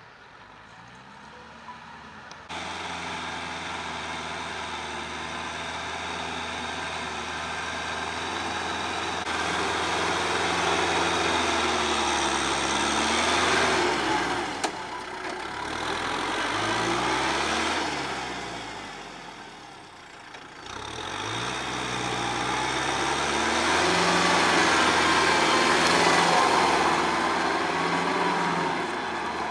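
Kubota L5018 tractor's diesel engine running under load while pulling a rotary tiller through the soil. The engine sound swells and fades several times as the tractor comes near and moves away, and its pitch bends up and down.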